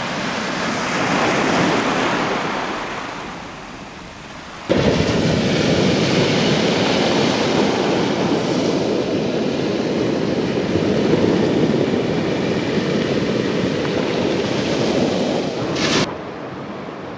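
Surf on the shore mixed with wind buffeting the microphone. A wave swells and ebbs over the first few seconds. A louder, steady rush of surf and wind then cuts in suddenly and cuts off suddenly near the end.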